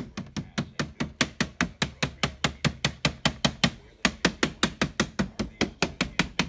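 Rapid, even tapping by hand on the frame and top edge of a repaired Philips LCD TV panel, about six knocks a second with a brief break about four seconds in. This is a tap test to check that the picture no longer flickers.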